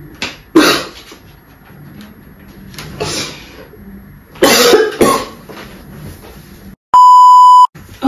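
A woman coughing hard several times into a cloth, faked coughing for a prank. About seven seconds in, a loud steady beep cuts in for under a second, like a censor bleep.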